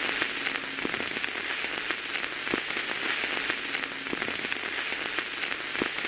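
A steady hiss with scattered crackles and clicks throughout, like rain on a surface.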